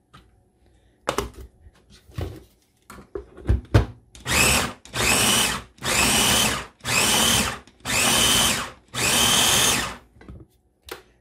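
Ninja chopper's motor pulsed six times in bursts of under a second, each a whine that sags in pitch as it is released, with the blades chopping tomato pieces. A few knocks come beforehand.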